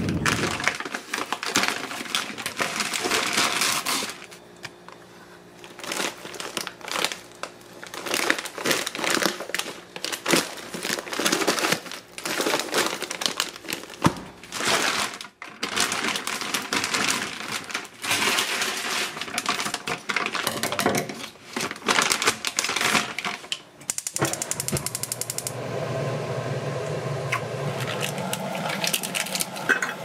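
Plastic bags of frozen dumplings crinkling and rustling as they are handled, in a dense run of irregular crackles and clicks. Near the end this gives way to a steadier, humming sound.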